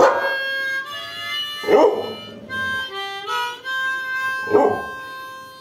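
A harmonica plays sustained chords while a dog howls along in three short, loud cries: one at the start, one about two seconds in and one about four and a half seconds in.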